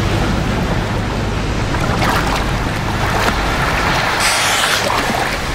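Small inflatable boat under way on open sea: a steady low motor hum under rushing, splashing water, with a louder hiss of spray a little past four seconds in.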